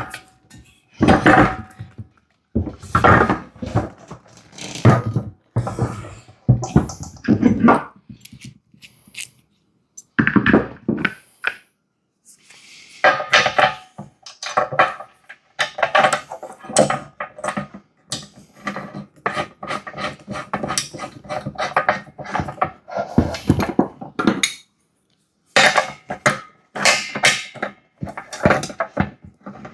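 Metal parts of an air compressor's wheel assembly being handled and fitted: irregular clanks, knocks and rattles, some ringing briefly, with short pauses between bursts.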